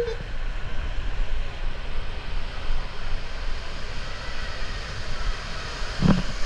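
Steady rushing rumble of a rider sliding down a wet fibreglass water slide, water and body running along the slide surface, with a thump near the end.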